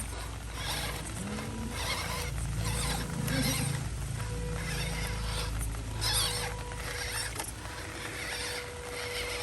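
Small electric motor of a radio-controlled scale truck whining at a steady pitch, with repeated bursts of scraping and crunching.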